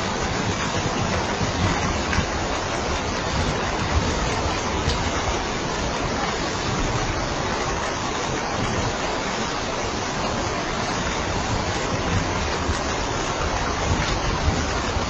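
Steady heavy rain: an even, unbroken hiss with a low rumble underneath and a few faint ticks.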